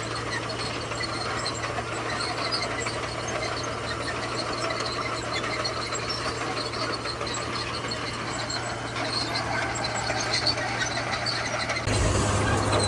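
Komatsu bulldozer at work: its diesel engine runs with a steady hum under clattering and scattered squeaks from the machine and gravel. Near the end the sound jumps abruptly to a louder, slightly lower engine hum.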